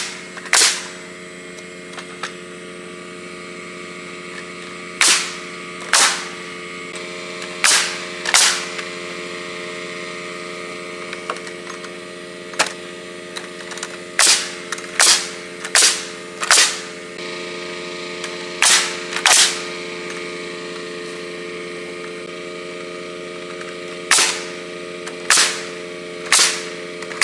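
Pneumatic air nailer firing nails into 2x6 framing lumber: about fourteen sharp shots, often in quick pairs a second or less apart, with pauses of a few seconds between groups. A steady mechanical hum runs underneath.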